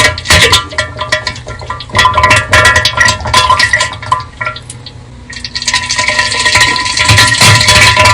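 Bass-boosted, distorted diarrhea sound effect: loud wet spluttering and splattering with crackling clipping. It drops quieter for about a second past the middle, then comes back loud.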